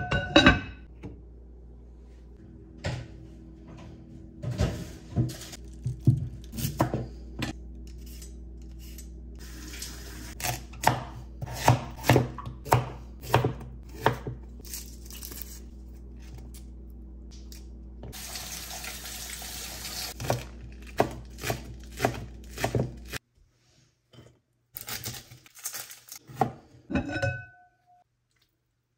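Kitchen prep: a knife chopping on a cutting board in a run of steady strokes, about two a second, among knocks of dishes and utensils, with a tap running briefly near the middle.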